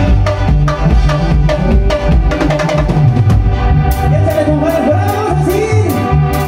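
Live band playing an upbeat Latin dance tune, with a driving drum kit and percussion beat under a repeating bass line and keyboards. A wavering melody line comes in about four seconds in, with sharp cymbal strikes keeping time.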